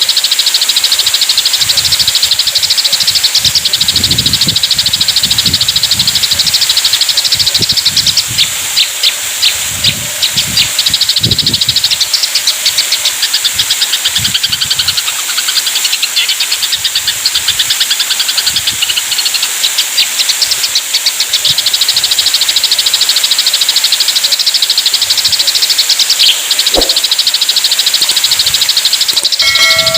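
Eurasian tree sparrows chattering in fast, continuous high chirp series, the agitated calls of sparrows fighting. A short steady tone of several pitches sounds near the end.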